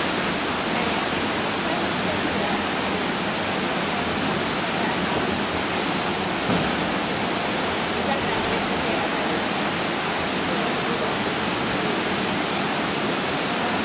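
Steady rushing noise of an indoor competition swimming pool hall.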